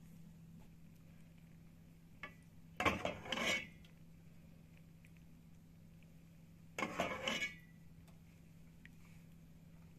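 A metal ladle clinking and scraping against metal cookware in two short clattering bursts, about three and seven seconds in, over a low steady hum.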